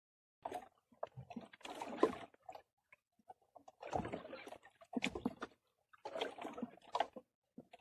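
Water sloshing and slapping against the hull of a small wooden boat in irregular bursts, with small knocks in between.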